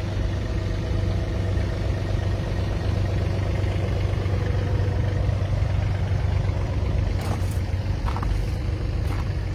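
Yanmar ViO30-5 mini excavator's diesel engine idling steadily, with a few light clicks near the end.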